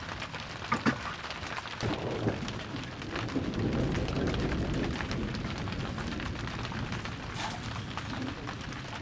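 Wood fire crackling in an open hearth: a steady noisy crackle with a low rumble that swells around the middle, and a few sharp pops, about a second and two seconds in and again near the end.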